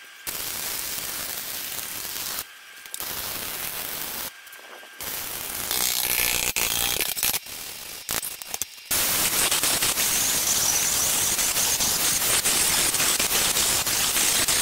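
Electric arc welding crackling and hissing in several runs, with short breaks where the arc is struck off. From about nine seconds in, an angle grinder runs steadily, grinding the steel.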